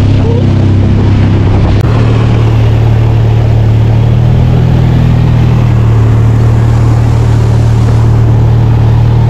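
Motorboat engine running steadily at speed while towing, with its drone holding an even pitch, over the rushing wash of the wake.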